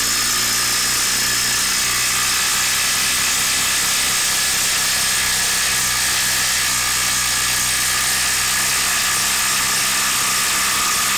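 Ryobi One+ 18V brushless impact driver hammering steadily under load as it drives a 6-inch lag screw into a wooden log, a loud, even rattle of rapid impacts.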